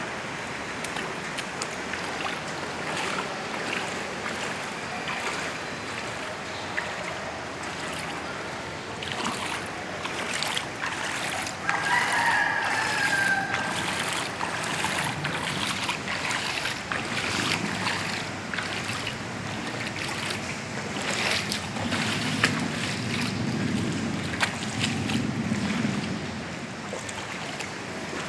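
Floodwater rushing and wind blowing, a steady noisy wash with scattered knocks. A rooster crows once, briefly, about twelve seconds in.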